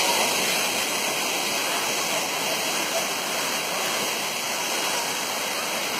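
Waterfall rushing steadily: an even wash of falling water.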